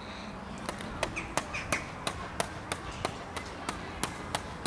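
Common starling giving a regular series of sharp clicks, about three a second, with a couple of short high chirps early in the run.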